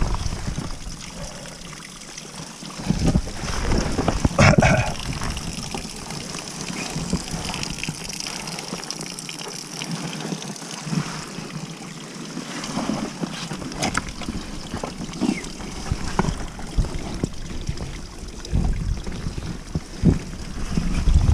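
Water trickling and running down a wet rock gully, a steady hiss, with gusts of wind buffeting the microphone and scattered knocks and scrapes of scrambling over rock.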